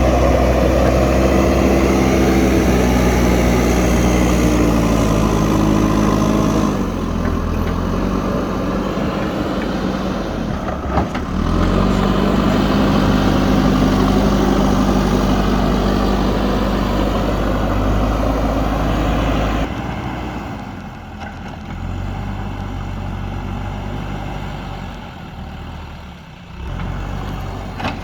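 JCB backhoe loader's diesel engine working under load, its revs falling about a quarter of the way in, building again, then easing off sharply about two thirds of the way through. A single short knock comes in the middle.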